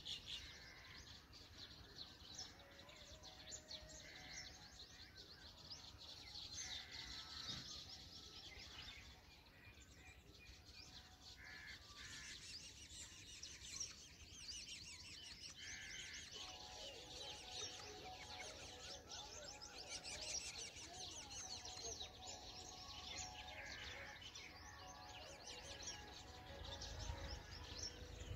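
Faint high bird chirping and rapid trilling, with short louder calls now and then.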